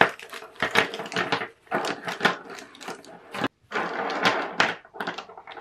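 Foil packaging crinkling as a bundle of plastic marker pens is slid out, with the pens clicking against each other and tapping on a wooden desk as they are laid out: a run of small clicks and rustles.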